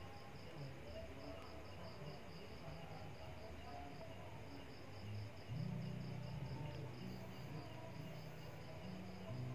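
A cricket chirping steadily and faintly, about five short chirps a second. About halfway through, a low steady hum joins it.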